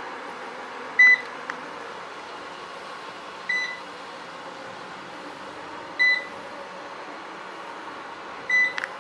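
Robot vacuum cleaner running with a steady hum, giving a short high beep about every two and a half seconds, four times.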